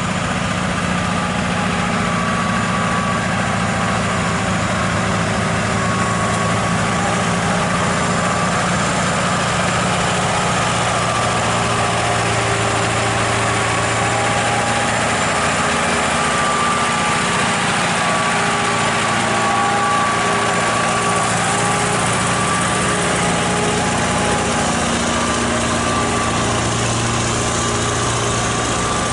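Scania R580's V8 diesel engine running steadily at low revs as the heavy truck pulls a bulldozer-laden lowboy trailer slowly past, its note wavering only slightly.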